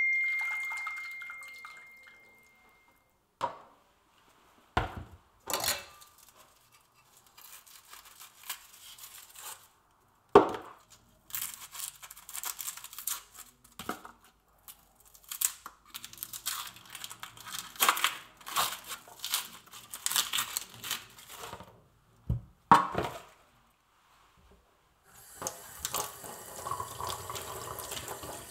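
Kitchen work: a ringing clink that fades over a few seconds, then a run of knocks and clatters with scraping and rustling between them. Near the end a kitchen tap starts running steadily.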